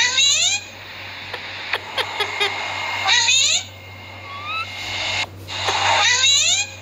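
Green ring-necked parakeet screeching in three loud bursts about three seconds apart. Each burst is a rapid run of shrill, quickly repeated notes lasting about half a second.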